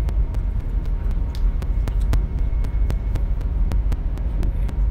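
Steady low rumble of a high-speed train heard from inside the carriage, with frequent faint ticks about four times a second.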